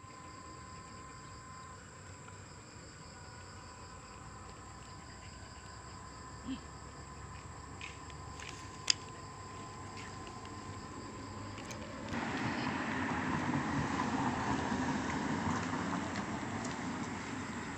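Roadside ambience: a faint steady high whine with a sharp click about nine seconds in, then from about twelve seconds in a louder, steady rush of road traffic.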